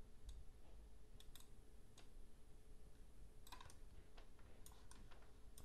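Near silence with faint, scattered computer mouse clicks, several in quick pairs, over a low steady hum.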